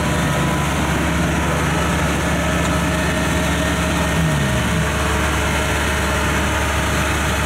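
Kubota rice combine harvester's diesel engine running steadily as the machine crawls on its tracks over aluminium ramps bridging a ditch; its engine note drops about four seconds in.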